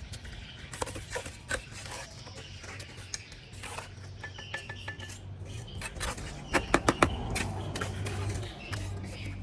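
Scattered sharp taps and clinks of hard objects knocking together, with a quick run of about four loud knocks near the end.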